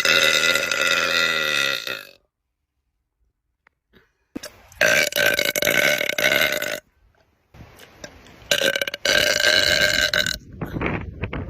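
A woman's long, loud burps, three in a row. The first runs on to about two seconds in, and two more follow after short pauses, each lasting about two seconds.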